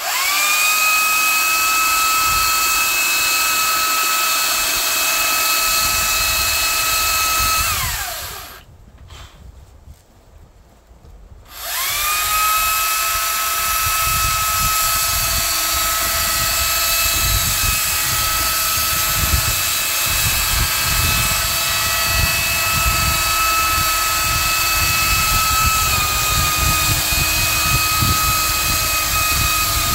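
Makita 40V cordless battery chainsaw running at full speed with a steady high whine, its chain cutting wood. It spins down and stops about eight seconds in, then starts again about three seconds later and runs on, cutting, until the end.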